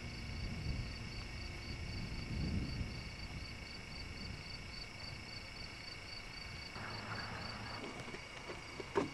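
Insects chirping steadily in an even, quick pulse, about four chirps a second, over a constant high drone. A low rumble in the first few seconds, and a sharp click near the end.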